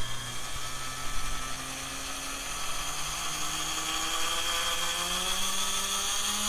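Homebuilt pulse motor (neodymium magnet rotor spun by two coils on a Hall-effect MOSFET circuit) running with no load, its whirring hum rising slowly and steadily in pitch as the pulse width modulator is turned up and the rotor speeds up, over a steady high whine.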